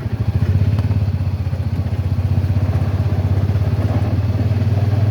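Honda Pioneer UTV's engine running steadily under way, a low drone with a fast, even pulse.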